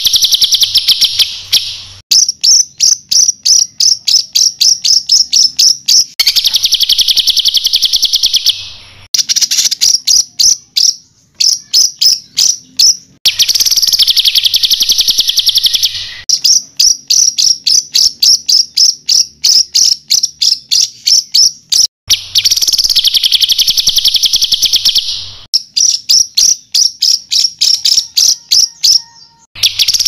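Songbird tutor (masteran) song: long runs of rapid, sharp high notes at several a second, the 'tembakan' shots, alternating every few seconds with buzzy rolling trills about two seconds long.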